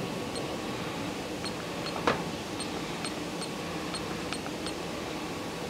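Key presses on a Yaskawa Motoman teach pendant's keypad while a password is typed in: about a dozen short, high ticks at uneven spacing, with one louder click about two seconds in, over a steady hum of fans.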